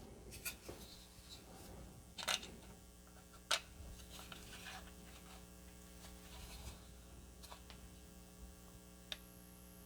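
Steady, faint mains hum, with a few light clicks and taps about half a second, two seconds and three and a half seconds in, and once more near the end.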